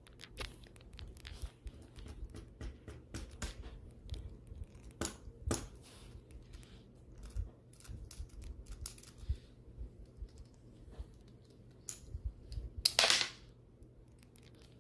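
Small hard plastic toy parts clicking and tapping as gloved hands handle a plastic dinosaur toy with clip-on armour. Near the end comes one louder, short noisy burst as the toy's back-mounted cannon fires its green plastic projectile.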